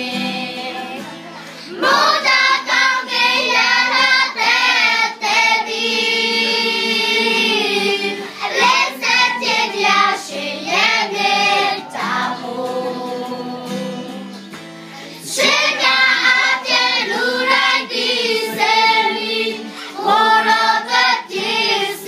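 A group of children singing a song together as a choir, in sung phrases with softer passages near the start and again about two-thirds through.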